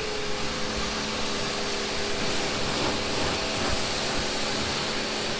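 Electric pressure washer running steadily, its motor humming under the hiss of the high-pressure water jet rinsing a car.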